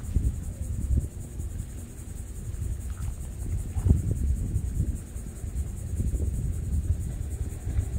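Wind buffeting the microphone in uneven gusts, with a steady thin high-pitched hiss above it.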